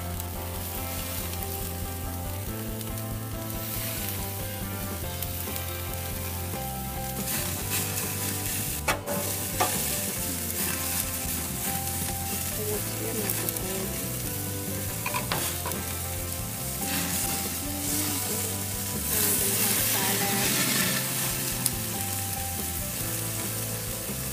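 Rib-eye steaks sizzling steadily on a gas grill's grates, fat dripping into the burner flames and flaring up. A couple of sharp clicks about nine seconds in, metal tongs touching the grate.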